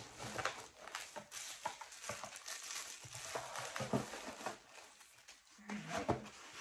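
Rustling and crinkling of paper and cardboard packaging being handled and unwrapped, with many small scattered clicks and taps.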